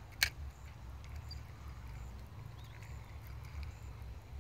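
A single sharp click about a quarter second in, over a low steady rumble, with a few faint ticks after it.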